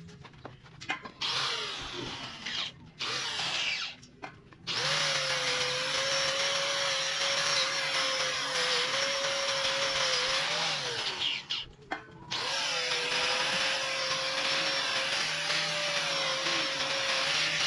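Angle grinder working stainless-steel railing tubing: a few short bursts at first, then running steadily against the metal with a constant whine, stopping briefly about two thirds of the way through before carrying on.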